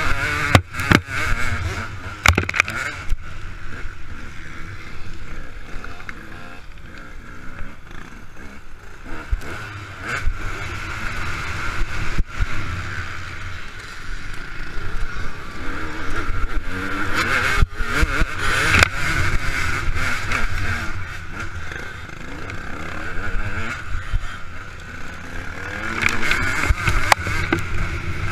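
KTM 200 EXC two-stroke single-cylinder engine revving hard and falling back again and again as it is ridden through the gears, heard from a helmet-mounted camera. Wind buffeting and several sharp knocks from the bike working over the rough track come through with it.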